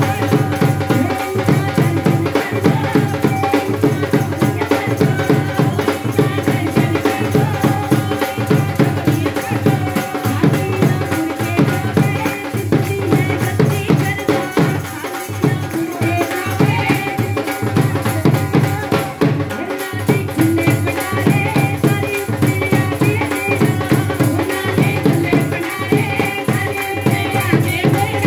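Live devotional bhajan music through a PA system. Women sing over a fast, steady beat of hand drum and jingling rattle percussion, with a held drone underneath.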